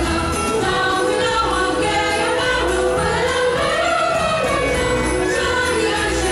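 Christmas music with jingling sleigh bells, a choir singing a flowing melody over a steady beat.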